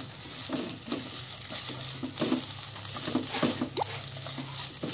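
Spatula stirring and tossing fried rice vermicelli in a coated wok: repeated soft scrapes and taps against the pan, several a second, over the sizzle of the frying noodles.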